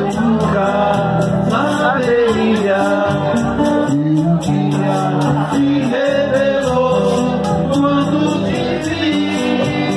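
A man singing into a microphone while playing an acoustic guitar: live, amplified vocal and guitar music with a steady beat.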